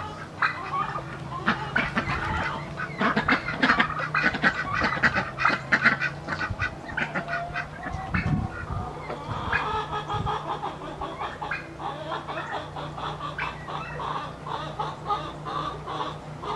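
A flock of white Pekin ducks quacking over and over, in dense runs of short calls with a lull about eight seconds in.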